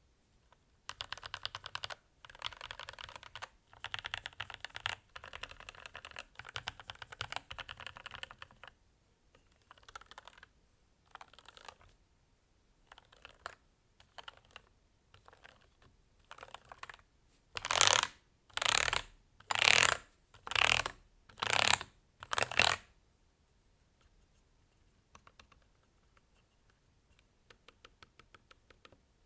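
Typing on a Keychron K8 aluminium-case mechanical keyboard with factory-lubed Gateron Red linear switches. A run of fast typing lasts about eight seconds, then slower scattered keystrokes follow, then six loud strokes come about a second apart, and a few faint taps sound near the end.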